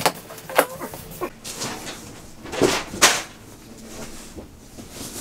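A large cardboard TV box and its styrofoam packing being handled and shifted: a few sharp knocks and scrapes, the loudest about three seconds in.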